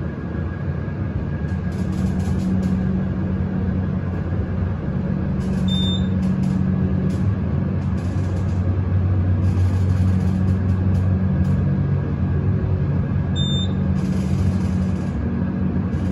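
Montgomery elevator motor running with a steady low hum as the car travels down. Two short high beeps sound, one about six seconds in and one a little past thirteen seconds.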